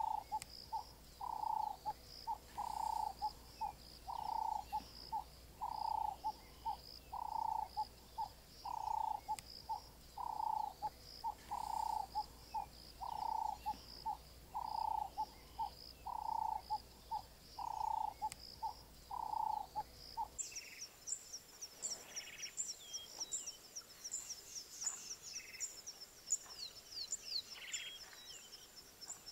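Bush ambience: a bird calls over and over at an even pace, a longer note alternating with shorter ones, over a high steady trill. About twenty seconds in, the sound changes abruptly to a rapid series of high chirps.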